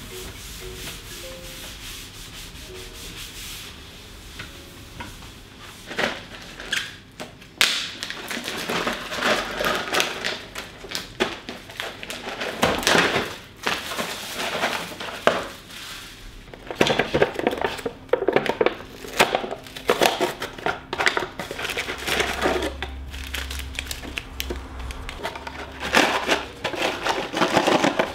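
A cloth rubbing over a wooden tabletop, then a lidded plastic instant-food cup being handled: its plastic lid comes off and its foil seal is peeled back. From about six seconds in there is a run of irregular crinkling, crackling and small knocks.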